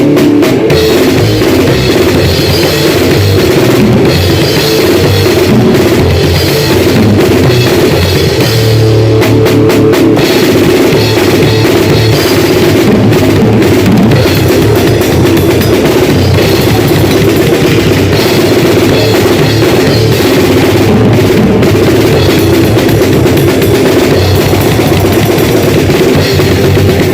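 A drum kit played hard and without a pause, very loud throughout.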